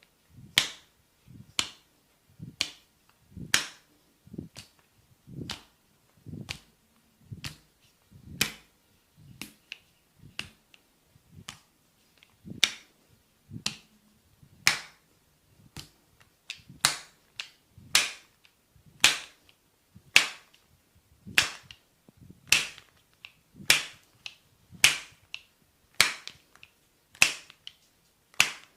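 Sharp cracking slaps from a barber's massage strikes on a person's back, landing in an even rhythm of about one a second, each with a dull body thump under a bright crack. They are louder in the second half.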